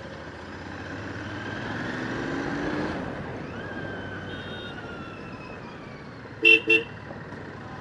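Motorcycle riding through street traffic: engine and road noise swelling to a peak about three seconds in, then easing. A vehicle horn gives two short toots about six and a half seconds in.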